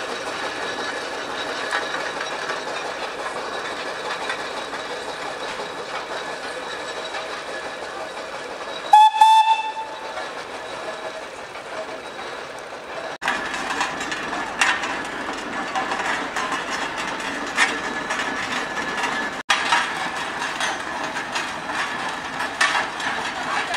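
Steam traction engines running, with one short steam-whistle blast on a single note about nine seconds in.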